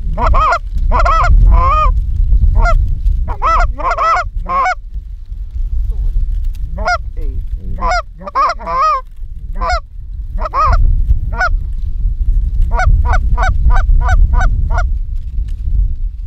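Canada geese honking and clucking, loud and close, in uneven bunches of calls, then a quick run of short clucks at about four a second near the end, over a low rumble.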